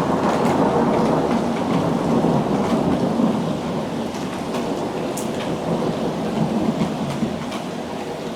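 Heavy rain falling through a long rumble of thunder that slowly dies away, with scattered sharp drip ticks on top.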